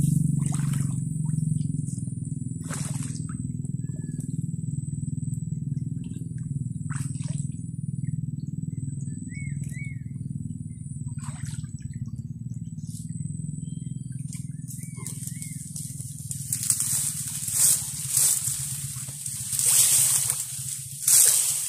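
Muddy water splashing and sloshing as a wire fish trap is set by hand in a shallow ditch: a few scattered splashes at first, then a run of louder splashes over the last several seconds. A steady low rumble runs underneath, with a thin high whine that stops about two-thirds of the way through.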